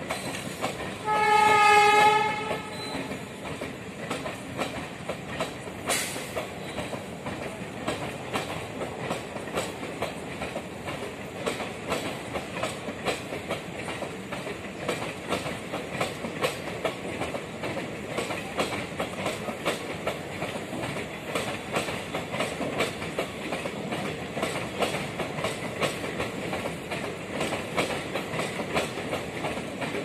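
A train horn sounds once for just over a second, about a second in. Then the coaches of a passenger train roll past with a steady, dense clickety-clack of wheels over the rail joints.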